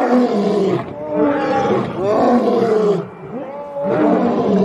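Two male lions roaring together, a run of long deep calls that eases briefly about three seconds in and then picks up again.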